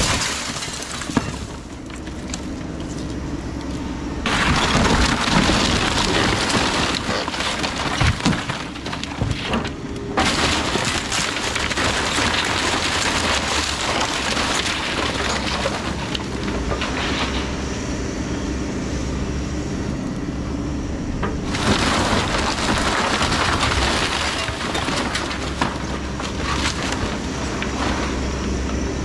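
Takeuchi TB2150 excavator's diesel engine running under hydraulic load as its bucket and thumb tear into a wooden house. Timber cracks and splinters and debris crashes down in long stretches, easing briefly about a third of the way in and again past the middle.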